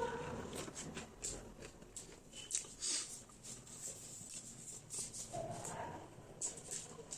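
Close-up eating sounds: chewing with irregular wet mouth clicks and lip smacks.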